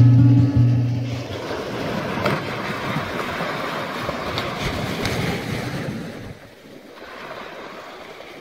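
Small waves breaking and washing up a sandy beach, dropping to a quieter wash about six seconds in. The last note of an acoustic guitar tune dies away about a second in.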